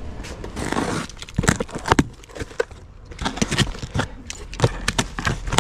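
Packaging being handled and opened by hand: a plastic mailer and a cardboard box rustle, scrape and crackle, with a string of sharp irregular clicks and taps.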